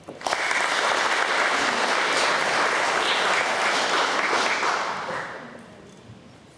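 Audience applauding, starting just after a speaker's closing "thank you" and dying away over the last second or two.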